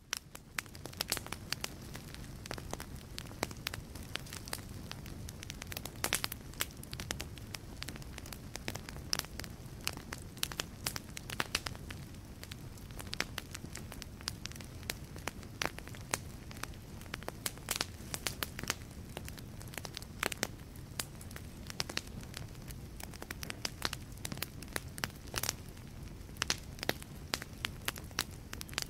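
Logs burning in a fireplace, crackling and popping: many sharp irregular pops over a steady low rumble of the flames. The sound fades in at the very start.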